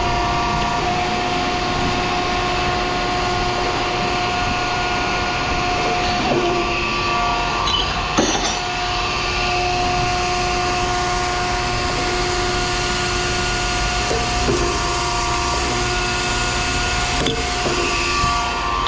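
A motor runs with a steady hum of several held tones, with a few sharp knocks scattered through, the loudest about eight seconds in.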